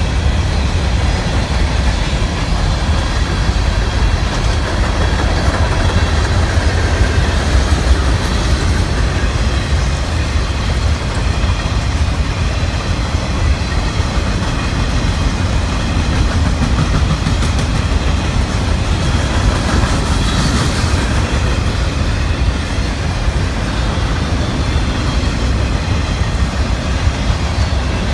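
Freight cars of a long freight train, boxcars and hoppers, rolling steadily past close by: the steady sound of steel wheels running on the rails.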